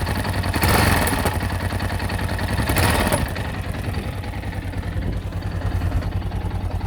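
Yamaha XT660Z Ténéré's single-cylinder four-stroke engine running at idle with a knocking sound. It swells briefly louder twice in the first half, then settles steadier.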